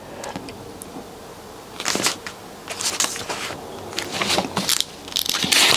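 Pages of a thick paperback guidebook being flipped through by hand: a run of short paper rustles, loudest near the end.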